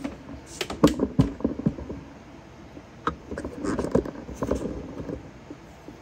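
Light clicks, taps and knocks of hands handling an open MacBook Pro laptop during RAM swapping, in two clusters: about a second in and again from about three to four and a half seconds.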